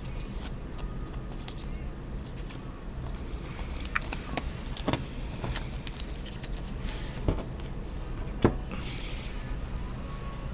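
Clear plastic card sleeves and wrappers being handled and crinkled, with scattered sharp clicks and taps; the sharpest comes near the end.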